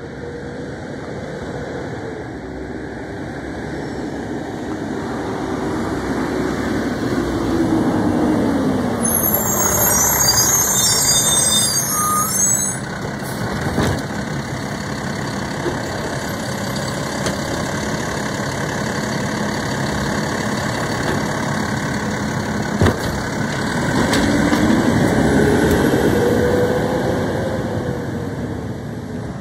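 Mack garbage truck with a New Way automated side-loader arm: the engine drops in pitch as the truck pulls up, with a hiss of air brakes as it stops. The engine keeps running while the arm picks up and dumps a cart, with one sharp knock a little past twenty seconds. Near the end the engine pitch rises as the truck pulls away.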